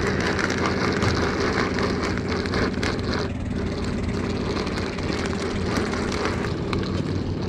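Small boat engine running steadily at an even speed, with a few light clicks over it.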